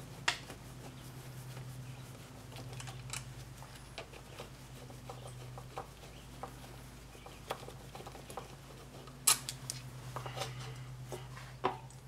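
Scattered light clicks and knocks of a motorcycle's front brake caliper and hardware being handled at the wheel, with one sharp knock just after the start and a louder one about three-quarters of the way through, over a steady low hum.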